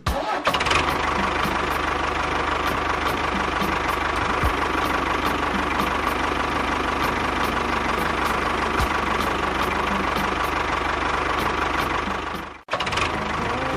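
A motor running steadily with a constant whine and a regular ticking, about three ticks a second. It cuts out abruptly near the end and starts again.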